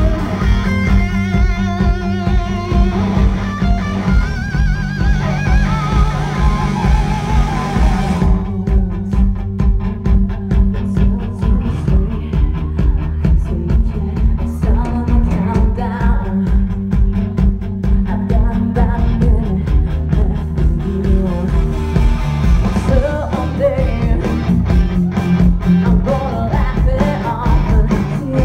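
Live rock band playing loud, as heard from the crowd. For the first eight seconds or so an electric guitar plays a lead of bending, wavering high notes over steady drums and bass. After that the band carries on with singing over it.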